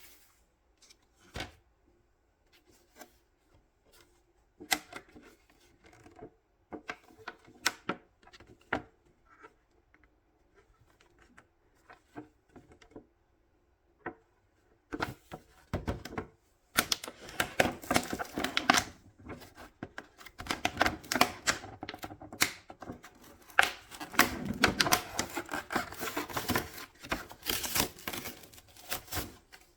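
Packaging being handled and opened by hand: scattered clicks and taps at first, then from about halfway a denser, louder run of crinkling and clicking.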